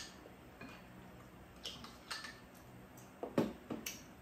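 Spoons and chopsticks clicking and tapping against bowls during a meal, in scattered light taps, with a louder cluster of knocks about three and a half seconds in.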